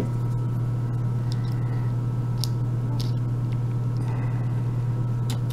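A steady low electrical hum, with a few faint, short clicks of a small metal tool working at the retaining clip of a brass euro lock cylinder.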